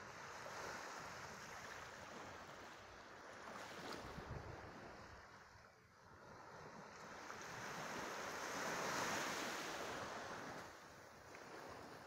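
Small sea waves lapping and washing up the sand at the shoreline, a steady wash that fades about halfway through and swells again to its loudest about three-quarters of the way in. Some wind rumbles on the microphone.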